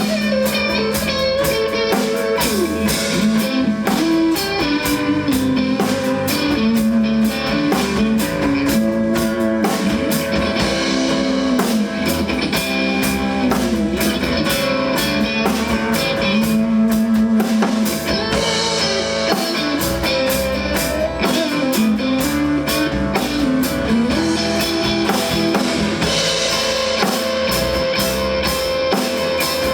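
A band playing an instrumental passage: guitar over a steady drum-kit beat, with no singing.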